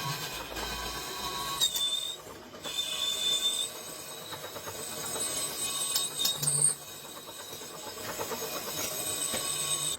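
Metalworking machinery running, with high metallic squeals of metal on metal a few times, loudest about two seconds in and again near seven seconds.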